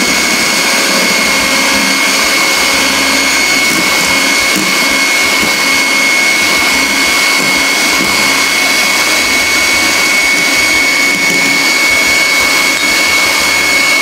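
Electric hand mixer running steadily at speed, its beaters whipping egg whites into meringue as icing sugar is beaten in; a steady high motor whine sits over the whir.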